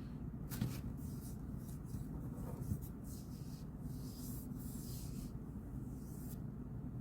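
Handwriting on paper: a run of short, scratchy writing strokes, over a low steady background hum.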